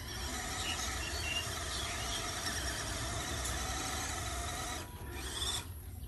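Small electric RC scale off-road trucks driving through sand: a steady whine from their motors and gearboxes over a rasping scrape of tyres in sand. The sound cuts out briefly twice near the end.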